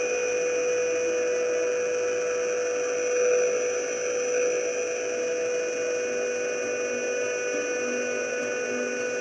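Ambient drone music: a sustained synth pad holds several steady tones. About six seconds in, low notes begin stepping up and down beneath it.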